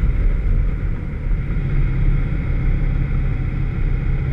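Vauxhall VX220 sports car driving, its engine running steadily under road and wind noise. The engine has a misfire.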